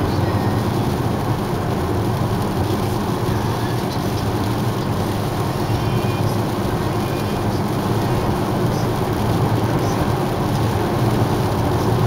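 Steady road noise inside a moving car: tyres on wet pavement and a low engine hum, even throughout with no change in speed.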